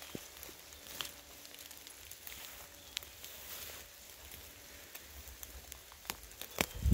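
Rain pattering steadily, with scattered sharp ticks of single drops. A low bump comes right at the end.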